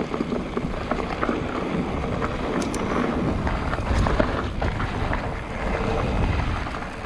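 Decathlon Rockrider XC 100 mountain bike riding fast down a dirt forest trail: tyres rolling over dirt and roots, the bike rattling and clattering over bumps, and wind on the camera microphone, with a hard knock about four seconds in.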